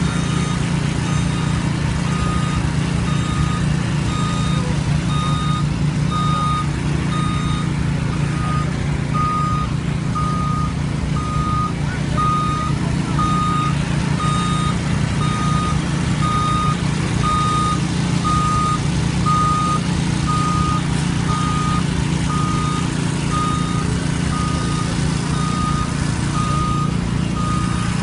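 Concrete mixer truck's engine running steadily while its reversing alarm beeps over and over, about one beep a second.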